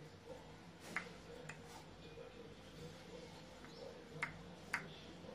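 Wooden rolling pin rolling out a stuffed paratha on a wooden board: faint rolling with a few sharp clicks, over a low steady hum.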